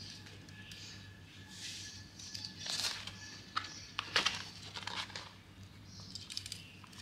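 Paper rustling from a spiral-bound notebook being handled and its pages turned, in a string of short soft rustles with a few sharp clicks near the middle.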